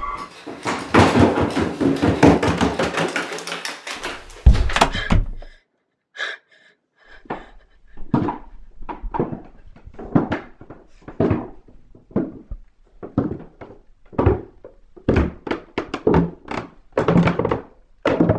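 A few seconds of loud, dense clattering noise ends in one heavy thump, then after a short pause comes a run of irregular thuds, one or two a second: footsteps on wooden stairs.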